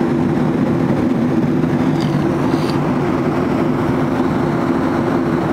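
Jet airliner cabin noise in cruise: a steady, loud drone of engines and rushing airflow with a low, unchanging hum.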